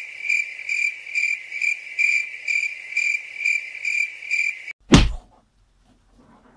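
Cricket chirping: a steady high chirp pulsing about three times a second, which cuts off abruptly near the end. Just after it comes a single sudden loud thump.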